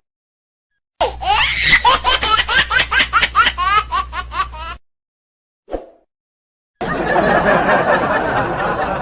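Laughter sound effects. A high-pitched laugh of rapid "ha" pulses, about four to five a second, lasts about four seconds and stops abruptly. After a short silence, a second, denser and noisier burst of laughter starts near the end.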